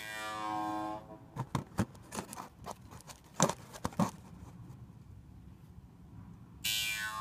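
Jaw harp twanging, a steady drone whose overtones sweep up and down, stopping about a second in. A scatter of sharp clicks and taps follows over the next three seconds, then the jaw harp starts again near the end.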